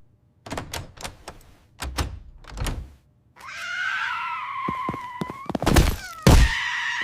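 A string of thuds and knocks, then a cat meowing in two long drawn-out calls, with two heavy thumps between them.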